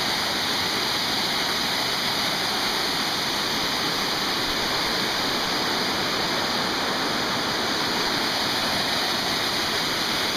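Rushing water, a steady, unbroken roar with no surges.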